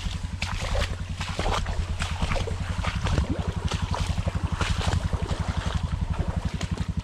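Motorcycle engine chugging steadily at low revs while the bike rides through a flooded, muddy rut, with repeated splashes and sloshing of water.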